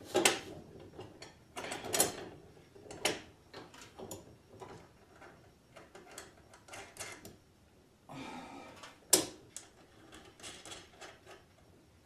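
Irregular metal clicks and clanks as the perforated steel door arm of a garage door opener is handled and shifted at its joints, with the loudest knocks near the start, about two and three seconds in, and about nine seconds in.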